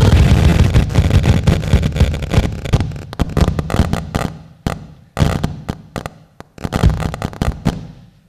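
Loud distorted electronic noise from a sound-art piece played over a PA, breaking up into a stutter of sharp crackles and pops. The pops thin out and fall quieter, with short silent gaps toward the end.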